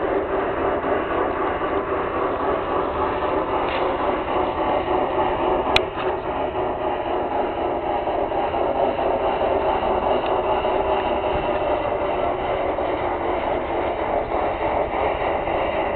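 LGB garden-railway Mikado steam-locomotive model and its train running on the track: a steady running noise, with a single sharp click about six seconds in.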